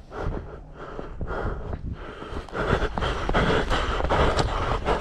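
A person breathing hard while walking through snow, with short crunching footsteps. The breathing and footfalls grow louder and closer together about halfway through.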